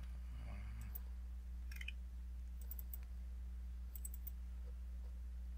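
Several sharp computer mouse clicks, a few in quick pairs like double-clicks, over a steady low electrical hum.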